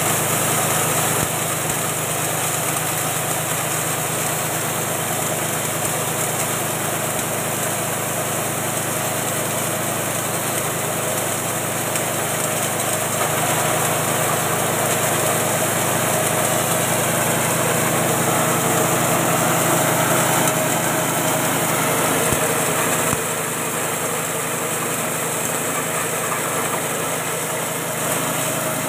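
Small 6.5 hp engine running steadily under load, driving a combined grass chopper and feed-grinding mill as grass stalks are fed through and chopped.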